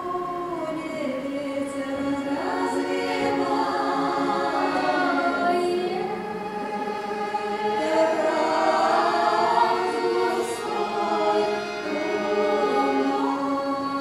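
Women's voices singing a Russian folk song in close harmony, several parts holding long drawn-out notes that slide between pitches.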